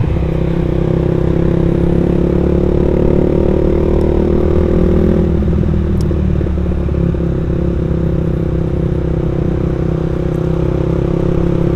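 Suzuki Satria F150 fuel-injected single-cylinder engine with an aftermarket racing exhaust, running steadily while the motorcycle cruises at about 40 km/h.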